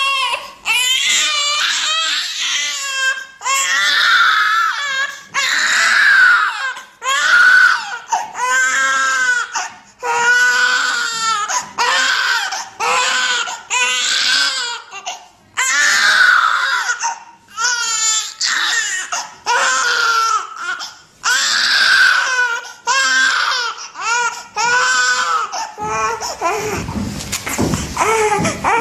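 Young infant crying hard in repeated wails, each a second or two long with short breaks for breath, in distress while held and pressed into position during Vojta therapy. A low rumbling noise joins the crying near the end.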